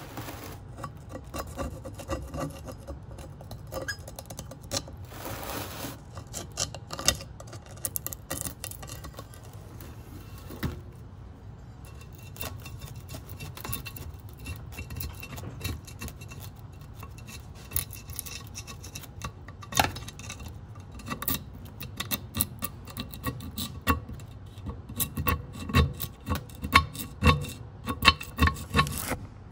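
A flat metal blade scraping and chipping rust scale off the finned surface of a Jeep Wrangler YJ's cast-iron brake drum: irregular scrapes with sharp clicks as flakes break away, growing louder and more frequent near the end.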